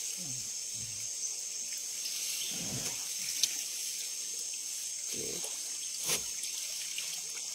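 Quiet riverside ambience: a steady high hiss, with a few faint low knocks and splashes and two sharp clicks, about three and six seconds in.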